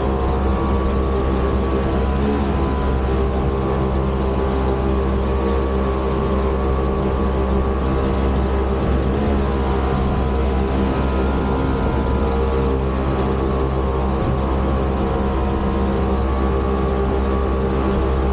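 Motorboat engine running steadily at speed, with the rush of water spraying off the hull.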